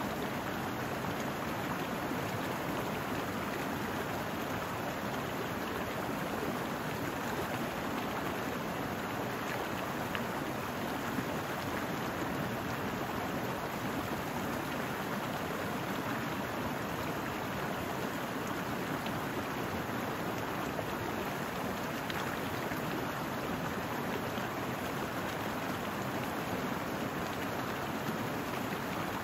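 A small brook running over rocks: a steady, even rush of water.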